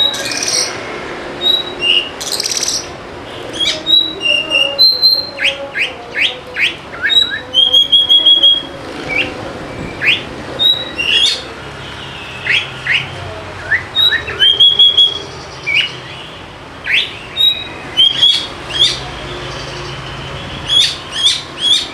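Oriental magpie-robin (kacer) singing loudly and continuously: a varied string of sharp, steeply falling whistles mixed with held clear notes and short rapid chattering trills.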